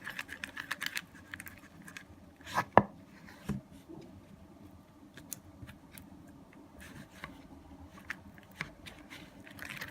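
Stirring thick, sticky glitter-glue slime in a bowl: irregular small scrapes and clicks of the stirring utensil against the bowl, with a couple of louder knocks between about two and a half and three and a half seconds in. The mix is still glue-like and hard to stir, partway through activating.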